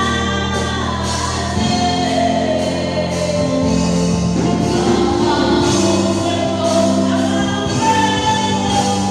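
Gospel music with group singing over sustained instrumental chords.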